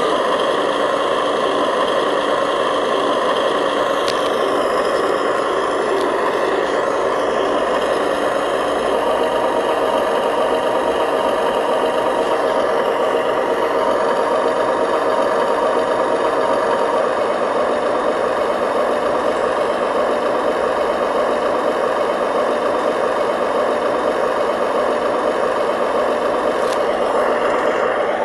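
Radio-controlled model construction vehicle running steadily: a continuous engine-like drone with some rattle.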